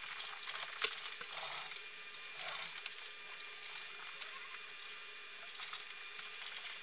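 Faint whirring of a SoftBank Pepper humanoid robot's motors as it rolls across a hard floor and turns, with a few light clicks in the first second or so.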